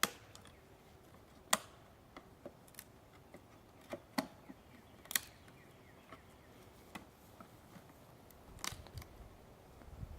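Scattered light clicks and knocks of hand tools working at a package of bees, a dozen or so at irregular moments.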